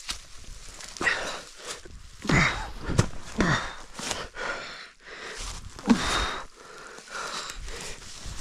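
A man grunting and breathing hard with effort as he drags a deer carcass uphill, several short strained grunts falling in pitch, with the rustle and crunch of dry leaves and brush underfoot and under the carcass.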